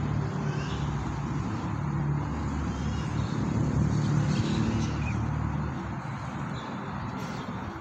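Low engine hum of a motor vehicle, swelling to its loudest about four seconds in and then easing off.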